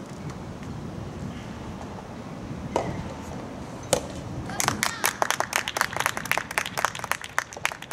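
Two sharp racket hits on a rubber soft tennis ball, about a second apart, then scattered hand clapping from spectators for about three seconds as the point ends.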